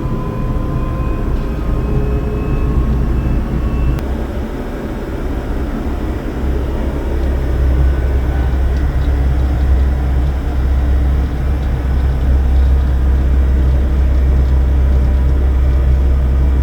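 Electric train running along the track with a steady low rumble that grows a little louder a few seconds in, and a faint, slowly rising whine in the first few seconds.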